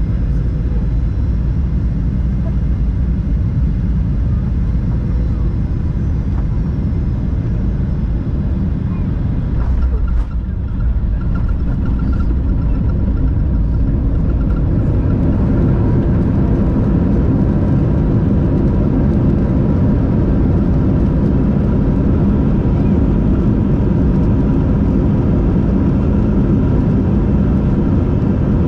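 Airliner cabin noise during landing: a steady rumble of engines and airflow, a short jolt about ten seconds in as the wheels touch the runway, then a louder rumble from the wheels and slowing aircraft as it rolls out along the runway.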